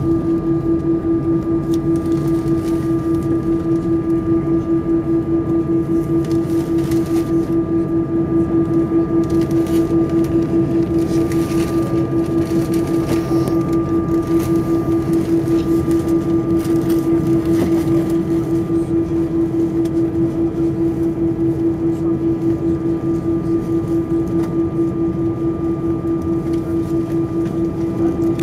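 Cabin noise inside an Airbus A320 rolling on the ground: a steady engine hum with a strong drone that pulses quickly and evenly, fainter higher tones above it, and low rumble beneath.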